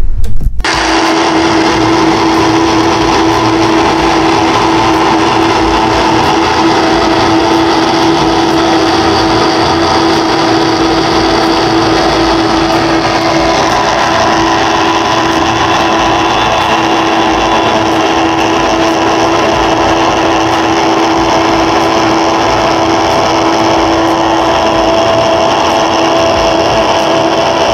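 Countertop blender motor starting about half a second in and then running steadily, puréeing cucumber, parsley, ginger and lemon with water into a smooth green juice.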